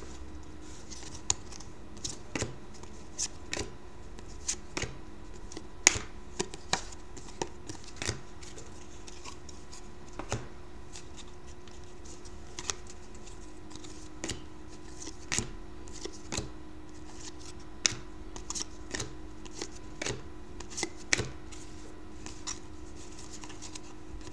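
A stack of glossy Panini Certified hockey trading cards flipped through by hand: irregular sharp clicks and snaps as each card slides off the stack. A faint steady hum runs underneath.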